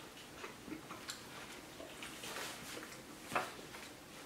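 Quiet room with a few faint clicks and light handling noise while snacks are eaten, and a slightly louder papery click about three seconds in as a printed booklet is picked up and opened.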